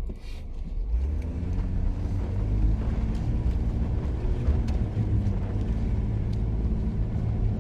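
Jeep engine running under throttle with a deep low drone. It picks up about a second in, and its pitch wavers as the gas is worked.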